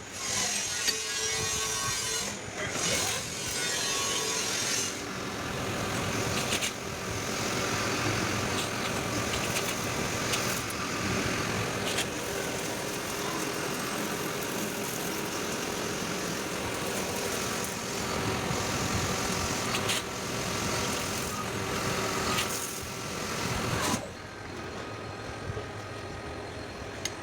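CNC machine running, a steady mechanical whir with a few sharp clicks; it drops in level about three seconds before the end.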